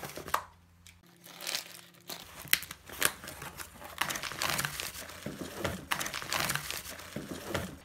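Cardboard parcel being pulled open and bubble-wrap packing crinkling and rustling as hands dig through it, starting about two seconds in, with a few sharp crackles.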